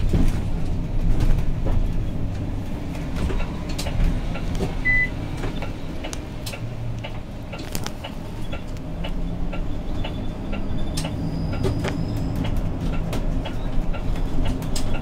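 Zhongtong LCK6113SHEVG city bus heard from inside its cabin while driving: a steady low rumble of drivetrain and road, with frequent small clicks and rattles. A short high beep sounds about five seconds in.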